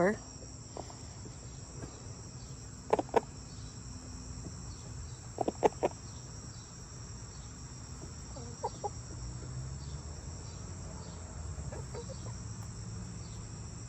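A chicken giving short clucks in pairs and threes, a few seconds apart, over the steady high chirring of crickets.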